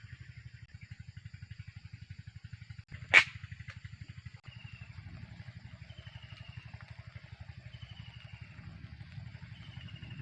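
A small engine running steadily with a fast even pulse, a single sharp click about three seconds in, and a bird repeating a short descending chirp four times, about every one and a half seconds, over the second half.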